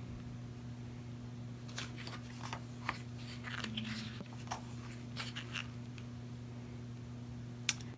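Light rustles and soft taps of photobook pages being handled, scattered irregularly, over a steady low hum; one sharper click near the end.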